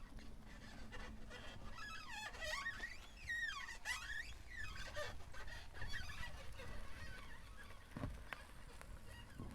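Tesla Model 3 front suspension creaking: long, wavering squeals from the upper control arms, strongest about two to four seconds in, then fainter creaks and a couple of soft knocks near the end. This creak is a common fault of the Model 3's front upper control arms, here appearing in hot weather.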